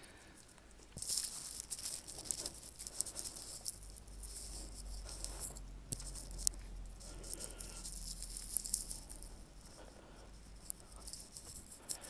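Footsteps and rustling handling noise from a hand-held phone as its holder walks around a parked camper van, with light ticks throughout and one sharper click about eight and a half seconds in.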